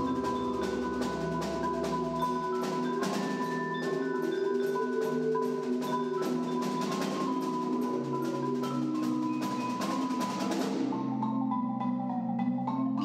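Percussion ensemble playing, led by a solo marimba with other mallet instruments and drums: quick mallet strokes over held ringing notes. About eleven seconds in the sharp strokes fall away, leaving lower sustained notes ringing.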